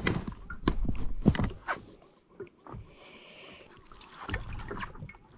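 Handling noises on an inflatable paddle board: a run of knocks and bumps as a large yellowtail is hauled onto the board and the camera is grabbed. The middle is quieter, and a rustling, sloshing noise builds near the end.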